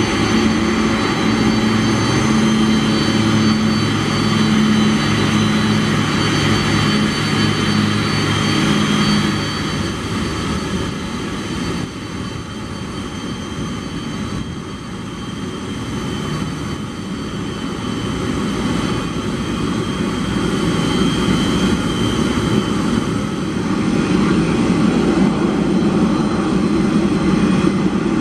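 Boeing 747-400 freighter's four turbofan engines running at taxi power, a steady jet rumble with a low hum that fades out about a third of the way in. The sound dips slightly midway and grows louder again near the end.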